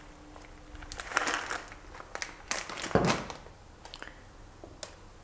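Plastic packet of pearl barley rustling and crinkling as it is handled, in a few short bursts, the loudest about three seconds in.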